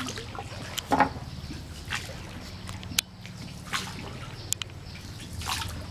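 Oar strokes from a small wooden rowboat, splashing and trickling in the river water about once every second or so, with two sharp knocks. A low steady hum runs underneath.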